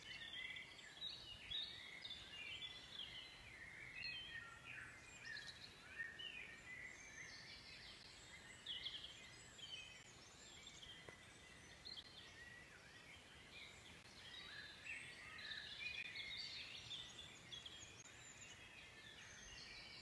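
Faint woodland birdsong: several birds singing at once, a continuous mix of short chirps and trills.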